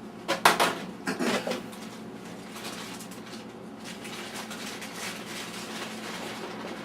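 Dishes clattering in a kitchen: two sharp bursts of clatter about half a second and a second and a half in, then a faint steady hiss.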